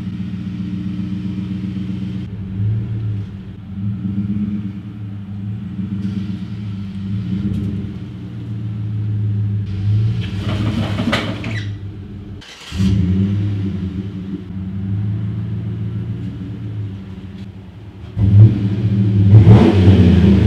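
2013 Chevrolet Silverado Z71 pickup's engine running at low speed as the truck reverses, a steady low rumble. Two brief louder surges come about ten seconds in and again near the end.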